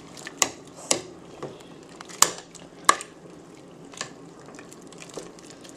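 Kitchen cookware being handled: about five sharp, separate clinks and knocks against a pot and utensils, spaced irregularly, as vegetables are added.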